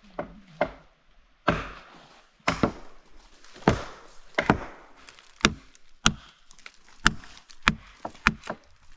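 Dry wood being broken for firewood: a dozen or so sharp, irregular cracks and snaps of dead branches, with rustling in between.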